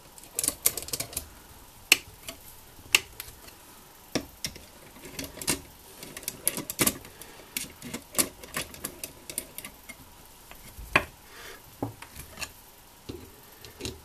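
Irregular sharp clicks and light metallic ticks, some in quick runs, from a hand screwdriver tightening the screws that join the two aluminium halves of a Simson S51 engine crankcase.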